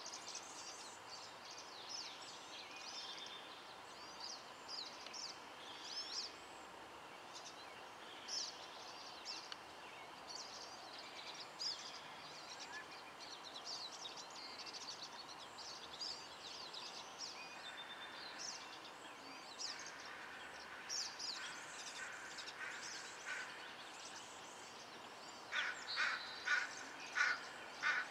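Birds calling over a quiet pond: many short, high chirps and peeps throughout. Near the end, a run of louder, harsher calls comes about two a second.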